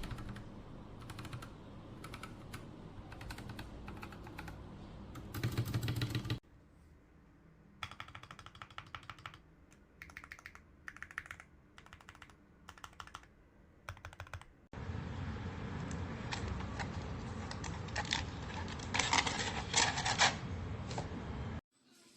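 Typing on a mechanical keyboard with Akko CS switches: rapid key clacks in three separately recorded runs that change abruptly about six and fifteen seconds in. The last run is the loudest, with its densest burst of keystrokes near the end.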